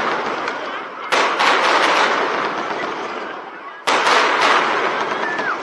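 Aerial fireworks shells bursting in quick succession: a sudden cluster of many sharp cracks about a second in and another near four seconds, each trailing off into dense crackling.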